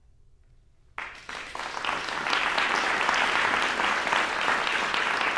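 After about a second of near silence, audience applause starts suddenly and builds within a second to steady clapping from many hands.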